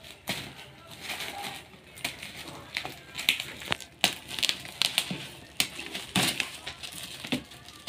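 A long parcel of paper, tape and bubble-wrap packaging being slit and torn open with a knife: irregular crinkling with many sharp crackles and snaps.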